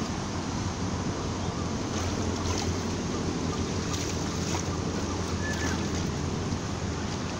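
Steady rushing noise of muddy river water, mixed with wind on the microphone, with a few faint splashes from people wading through the water.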